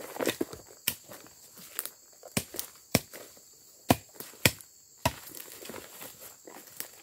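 Footsteps in rubber boots walking over freshly cut grass and dry palm fronds, with a handful of sharp knocks and snaps at irregular intervals. The loudest two come just before and just after four seconds in.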